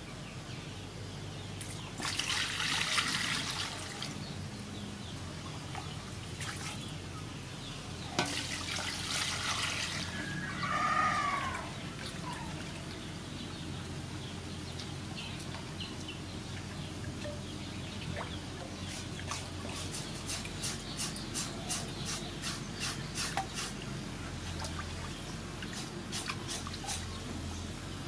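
Water splashing and trickling in an aluminium basin as raw pork is washed by hand, with two louder splashes of poured or sloshed water in the first ten seconds. In the second half a knife scrapes the pork skin in the water in quick repeated strokes, about three a second.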